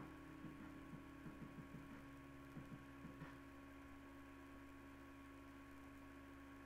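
Near silence: a steady low electrical hum, with a few faint soft taps in the first three seconds.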